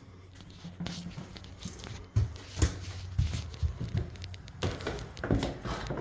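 Irregular low thumps and scratchy rubbing noises of someone walking through an empty room while handling the camera. They start about two seconds in and grow busier toward the end.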